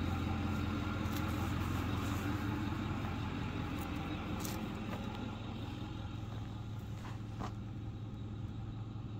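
A steady engine hum, like a vehicle idling, holding an even low pitch and fading slightly toward the end, with a couple of faint clicks.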